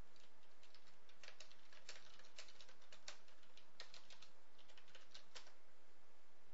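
Typing on a computer keyboard: an irregular run of quick key clicks that stops shortly before the end.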